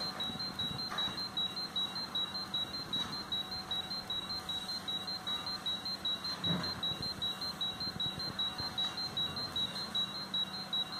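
Crowcon Gas-Pro portable gas detector's alarm sounder beeping rapidly and steadily at a high pitch: the alarm set off by the test gas during a bump test. A soft thump about six and a half seconds in.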